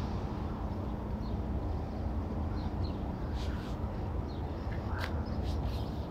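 Steady low outdoor rumble with faint, short bird chirps scattered through it and one sharper call about five seconds in.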